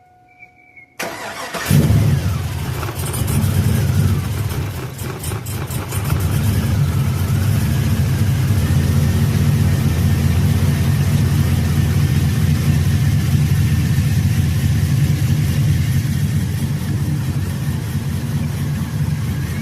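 A 2002 GMC Sierra's 5.3 L LS V8 cranks briefly about a second in and catches, runs unevenly for a few seconds, then settles into a steady idle. This is the first start after the knock sensors were replaced and the intake manifold refitted, and it runs well with no misfire.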